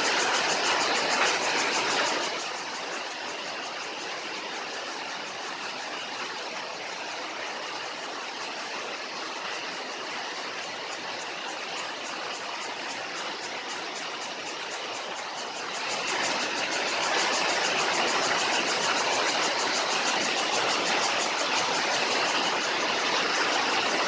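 Steady rushing of a waterfall pouring into a rocky pool. It is louder for the first two seconds, then quieter, and swells again from about sixteen seconds on.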